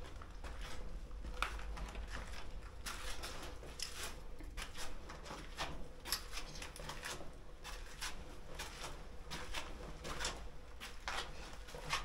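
Footsteps crunching and scuffing on grit and debris on concrete stairs, a few irregular steps a second.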